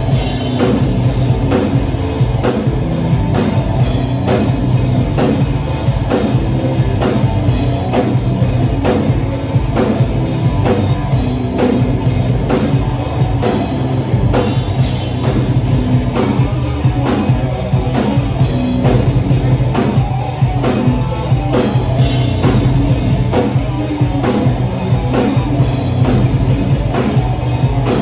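Loud live rock band playing: electric guitar, bass guitar and a drum kit hitting a steady beat.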